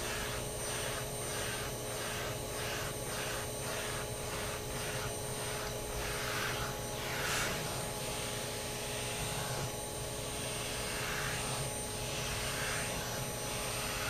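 Vacuum cleaner running steadily with a bladed deshedding attachment on its hose being stroked through a long-haired cat's coat. For the first several seconds the suction noise pulses about twice a second with the strokes, then turns irregular.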